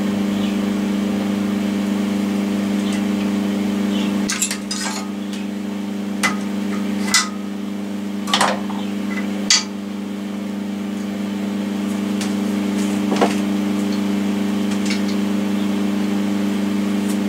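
Sharp metallic clinks and knocks, about seven spread over several seconds, as a steel bar clamp is loosened and lifted off a welded steel bracket held in a bench vise, over a steady low machine hum.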